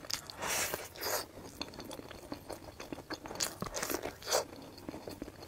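A person biting and chewing kernels off an ear of boiled waxy (glutinous) corn on the cob: a string of soft crunches and chewing sounds.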